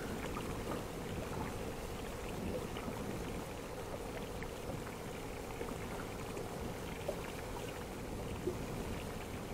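Water lapping against the hull of a small inflatable boat, a steady low wash with a faint steady hum and a few small clicks.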